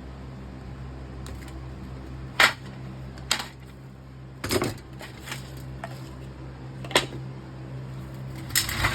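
A handful of separate sharp knocks and clacks, about five, from tools and a casting mould being handled after a copper pour, over a steady low hum; the loudest knock comes about two and a half seconds in.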